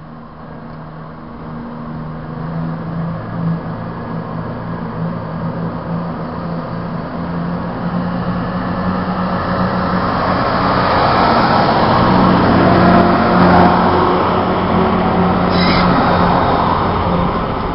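Chiltern Railways Class 168 diesel multiple unit running past close by, its underfloor diesel engines giving a steady low hum that swells to its loudest about two-thirds of the way through. A brief high-pitched squeak comes a few seconds before the end.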